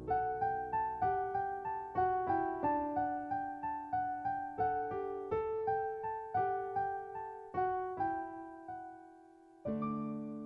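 Background music: an electric-piano melody of struck notes, about three a second, fading to a pause before a held chord near the end.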